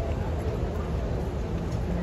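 Steady low rumble of city street background noise.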